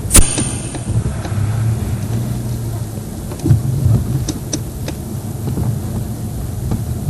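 Game-drive vehicle driving over a bumpy track: a low engine hum with irregular knocks and rattles, and one sharp clank just after the start.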